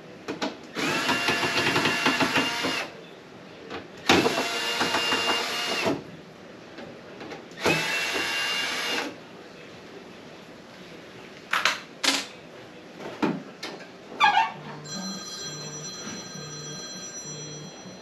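Cordless drill-driver with a Phillips bit, running three times in bursts of about two seconds, backing out screws. Several short clicks and knocks follow.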